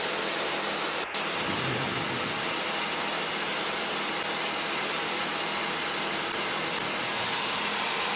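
Steady hiss of open radio squelch static in the aircraft's headset audio, with a brief dropout about a second in. The pilot doesn't know where the squelch noise is coming from.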